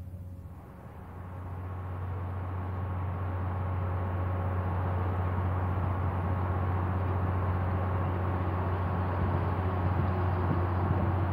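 Boat engine droning low and steady, with a rushing noise that swells over the first few seconds as the fireboat closes in, then holds steady.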